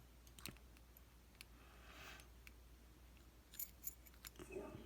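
Faint, sparse small metallic clicks and handling noise as a Euro profile lock cylinder is turned inside a padlock body to free it.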